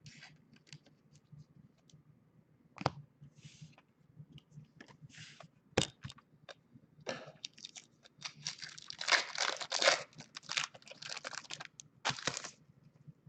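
Handling of trading-card packs: a few light clicks and two sharp taps, then, from about the middle on, a trading-card pack's foil wrapper being torn open and crinkled.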